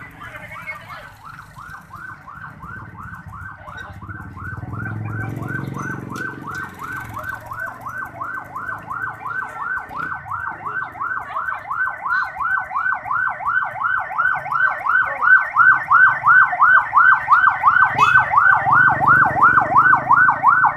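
Ambulance siren wailing in a fast up-and-down yelp, growing steadily louder as the ambulance approaches, with the rumble of passing vehicles underneath.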